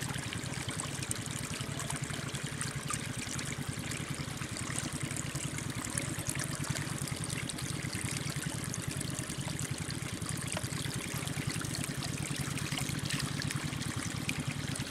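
Shallow water trickling and splashing steadily as it runs through a gap cut in a muddy bank.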